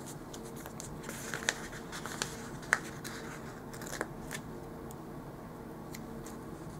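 Paper handling: a sheet of planner stickers and sticky notes rustling and crinkling as they are moved and pressed onto the planner pages, with a run of sharp little clicks and crackles from about a second in to about four seconds in, one standing out.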